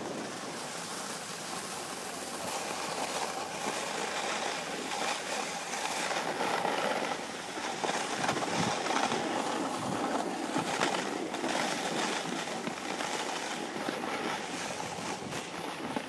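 Snowboard sliding and scraping over packed snow, with wind rushing over the microphone: a steady noisy rush broken by many short scratchy scrapes.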